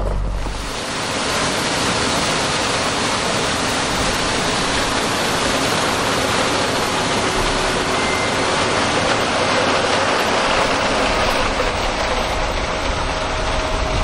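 John Deere X9 1100 combine harvesting corn: a steady, unbroken rushing mechanical noise of engine and threshing, starting suddenly about half a second in.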